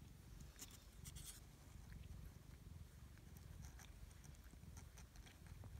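Near silence: faint rustling and scattered small clicks of kittens shifting about on soft bedding in a cardboard box, over a low steady rumble.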